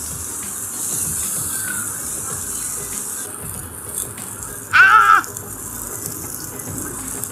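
Steady sizzling hiss of beef slices cooking in a shallow pan on a tabletop gas burner. About five seconds in comes a short, loud, high-pitched squeal.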